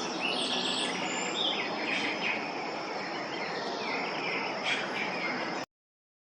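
Outdoor chorus of insects with a steady high buzz, with birds chirping over it in short calls. It cuts off suddenly near the end.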